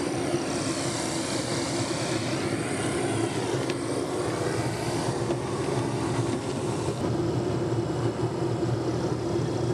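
Aircraft engine running at the airport: a steady drone with a higher whine that slowly rises and falls.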